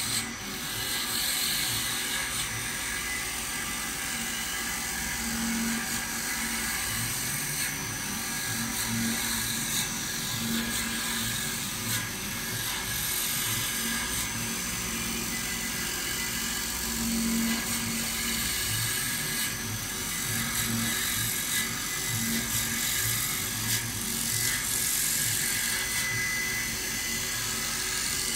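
Automatic CNC wood lathe running, its cutters turning a spinning wooden table leg: a steady machine whir with a constant hiss of wood being cut.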